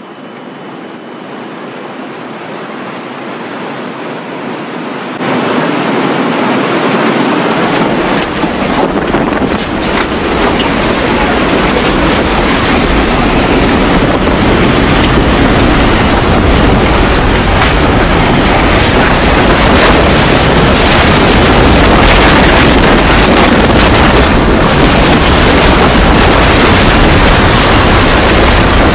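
Simulated tornado roar: a rushing wind noise that grows steadily louder, jumps up about five seconds in, and gains a deep rumble soon after, then holds loud.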